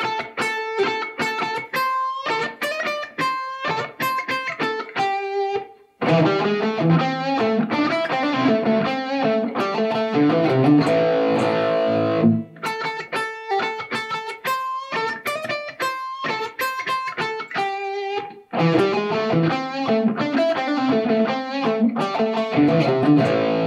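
Instrumental music led by a distorted electric guitar, with passages of short, separated riff notes alternating with passages of fuller held chords.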